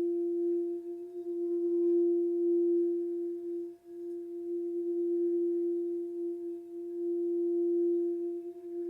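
Quartz crystal singing bowl sounding one sustained, steady tone with fainter higher overtones, swelling and easing in loudness, with a brief dip about four seconds in.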